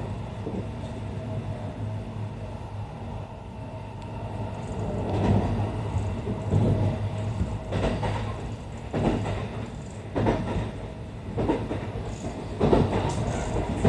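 Running noise of a Kintetsu 80000 series Hinotori electric train, heard from inside the passenger cabin: a steady low hum with wheels clacking over rail joints. The clacks come roughly once a second and are more frequent and louder from about five seconds in.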